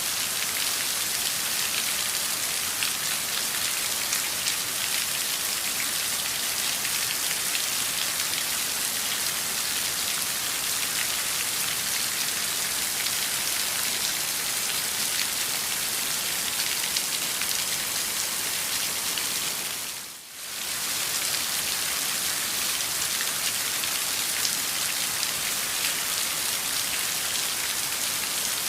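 Steady heavy rain falling on a surface, a dense hiss of many individual drops. The level dips briefly about twenty seconds in, then returns.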